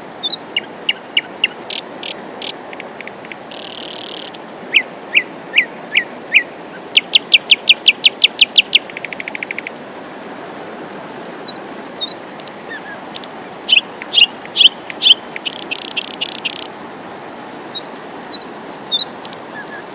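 Steady hiss of falling rain, with songbirds calling over it: scattered sharp chirps, a fast run of repeated notes about a third of the way in, and another busy burst of chirping past the middle.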